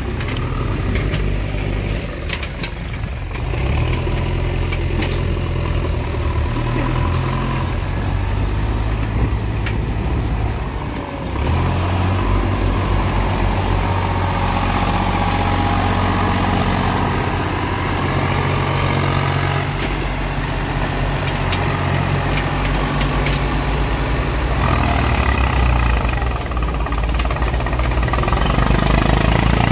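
Eicher 368 tractor's diesel engine running under load as it pulls a trolley heaped with soil; the engine note changes about a dozen seconds in and again near the end.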